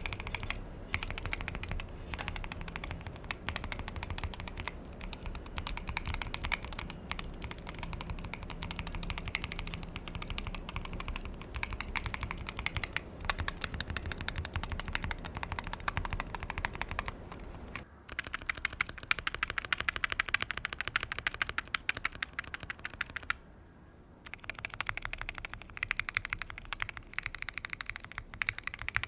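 Keychron Q1 HE magnetic-switch keyboard typed on rapidly: a continuous patter of keystrokes from its Gateron-made Nebula magnetic switches under PBT OSA keycaps in a gasket-mounted aluminium case. About 18 seconds in, the typing turns brighter and clickier with less low thud, and it stops briefly about 23 seconds in.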